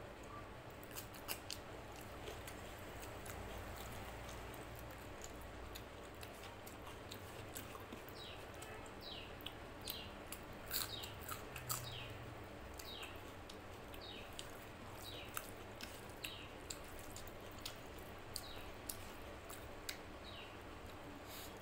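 Close-up eating sounds: chewing with wet mouth clicks and smacks as rice and mutton curry are eaten by hand. Short high squeaky chirps come and go through the second half.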